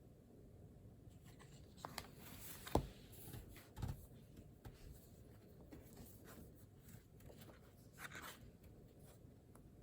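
Faint scratching of a pen writing on paper, with a few soft knocks on the desk, the loudest a little under three seconds in and a duller one about a second later.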